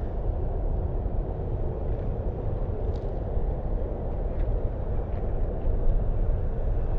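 Steady low rushing noise, strongest in the deep bass, of water pouring from a sewer discharge outfall.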